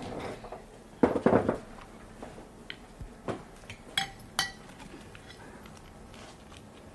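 China and cutlery clinking at a breakfast table: a louder clatter about a second in, then a handful of sharp clinks, two of them with a short ringing note.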